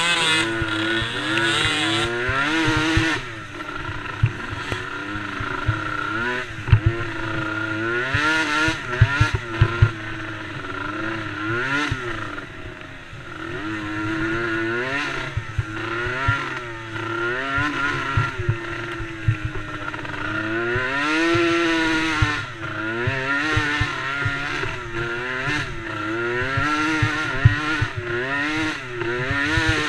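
DRR DRX90 youth race quad's small engine revving up and falling back over and over as it is ridden hard around the track, with frequent short low knocks.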